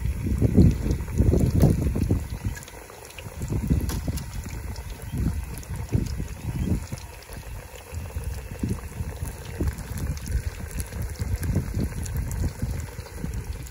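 Hot oil bubbling and crackling around battered yellow perch frying in a pot on a propane cooker, with scattered sharp pops. An uneven low rumble swells and fades underneath, strongest in the first couple of seconds.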